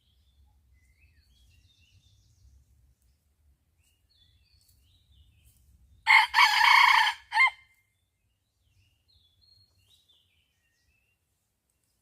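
A rooster crowing once, loud, about six seconds in and lasting about a second and a half, with faint small-bird chirps before and after it.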